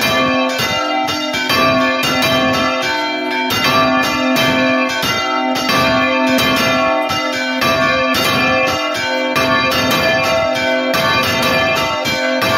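Church bells ringing a call to mass: a bronze bell swinging full circle on its counterweighted headstock close by, with many strikes in quick succession and a long, overlapping ring between them.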